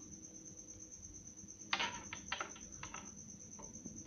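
Faint handling noise of a small plastic plug-in power adapter being turned over in the hand: a cluster of short clicks and rubs about two seconds in. A steady, high, faintly pulsing tone runs underneath.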